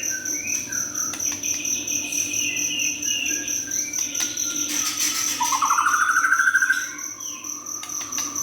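Young white-rumped shama singing a string of varied short phrases. The loudest is a rising trilled phrase in the middle. A steady high-pitched buzz runs underneath.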